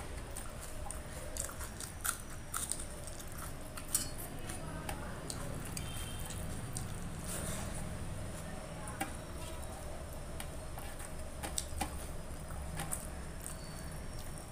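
Chewing a mouthful of rice and curry, with wet mouth clicks and smacks, while fingers squish and gather rice on a steel plate. Scattered sharp clicks stand out over a steady low background.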